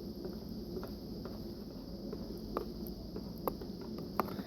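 A spoon stirring slime powder into water in a bowl, with a few light ticks of the spoon against the bowl, the clearest in the second half.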